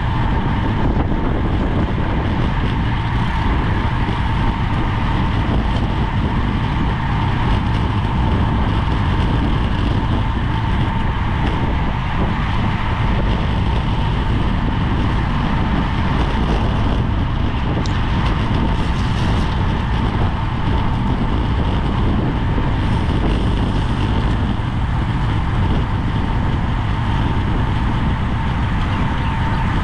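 Steady rush of wind buffeting a racing bicycle's GoPro microphone at race speed, heavy and low, with a thin steady whine underneath.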